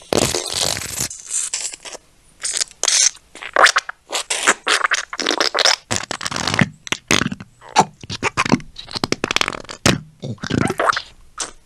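Squeeze ketchup bottle sputtering and squirting in a long run of irregular spurts, some short and some nearly a second long.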